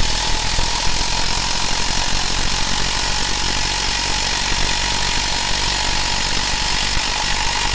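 Parkside PDSSA 20-Li A1 cordless impact driver, brushed motor on a 20 V 2 Ah battery, hammering continuously under load as it drives a long 6 × 200 mm screw into a pilot hole in a wooden beam.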